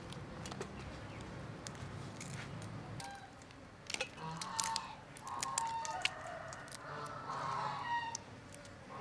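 Chickens calling several times in the second half, a rooster's crow among them, over small clicks and cracks of cooked crab shell being broken apart by hand.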